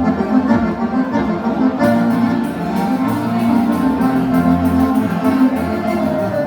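Live band music: an instrumental passage of a gaúcho dance tune, with a melodic lead over a steady repeating bass line.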